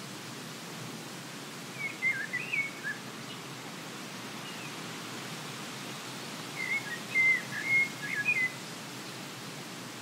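A songbird singing two short warbling phrases of quick sliding notes, about two seconds in and again about seven seconds in, over a steady hiss of breeze.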